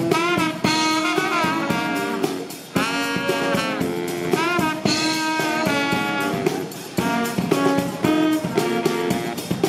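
Music: horn-like brass lines, with some sliding notes, play over a steady beat.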